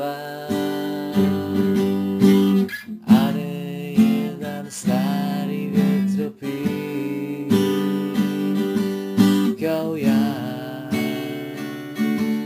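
Acoustic guitar strummed as song accompaniment, an instrumental passage between sung lines.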